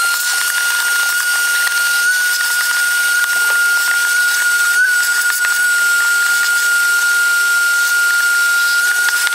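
Vacuum cleaner running steadily with a high, even whine and rushing air, its hose sucking dust and dirt out of a car's empty air filter box.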